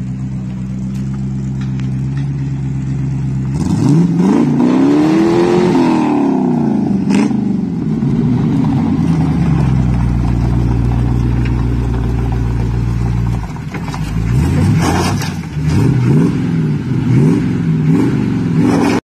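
Late-1960s Chevrolet pickup's engine idling, then revved up and back down about four seconds in. It settles to a steady run, then gives a series of short blips of the throttle near the end.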